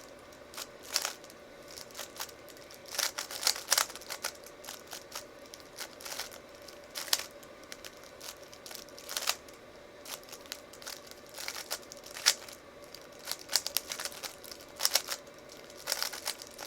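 3x3 Rubik's cube being turned quickly during a speedsolve: irregular runs of plastic clicks and clacks as the layers are turned, with short pauses between runs.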